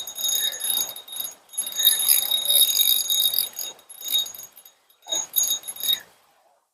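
Fishing reel working as a hooked rainbow trout is reeled in: a fast, metallic, ringing rattle that comes in bursts of a second or two, with short breaks between them.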